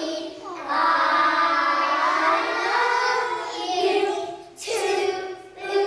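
A group of preschool children singing a song together, with a short break between phrases about three-quarters of the way through.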